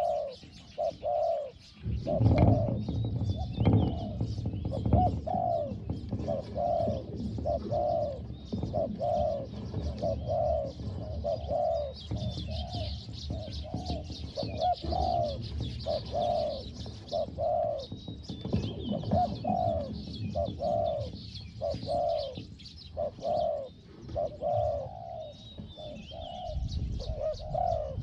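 Spotted doves cooing, a long run of repeated low notes about one or two a second, with small birds chirping higher up. A low rumble sets in about two seconds in.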